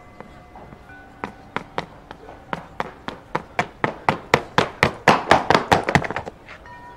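A run of sharp taps that come closer together and grow louder from about a second in, then stop suddenly near the end, over faint sustained tones.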